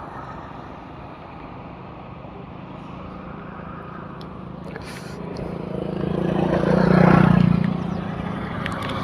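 A motor vehicle passing close, growing louder to a peak about seven seconds in and then fading, over a steady low engine hum.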